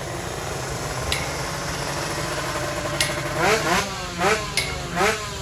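Tuned 155 cc sport-class drag-race motorcycle engines running at the start line, blipped in four quick rising revs in the second half, with a few sharp cracks among them.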